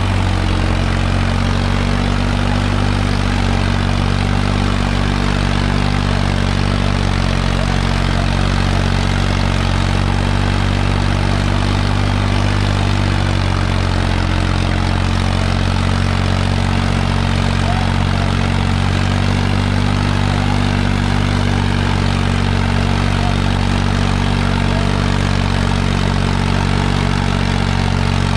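Farmtrac tractor's diesel engine running steadily and loudly while dragging a two-row disc harrow in a pulling competition.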